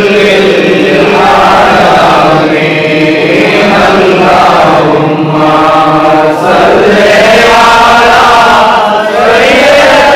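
A man's voice chanting melodically into a microphone, drawing out long held notes with few pauses.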